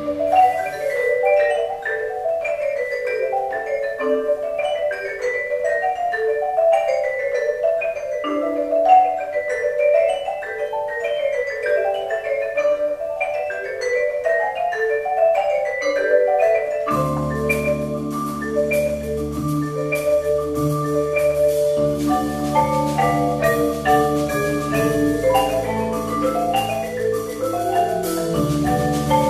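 Keyboard percussion ensemble of marimbas and vibraphone playing a piece of quick, repeated mallet notes in the middle register. About 17 seconds in, low bass notes and longer ringing tones join, filling out the sound.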